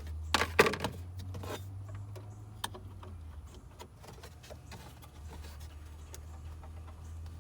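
Hands working an anti-theft module and its wiring connector back into a car's interior: a few sharp plastic clatters in the first second and a half, then scattered light clicks and taps, over a steady low hum.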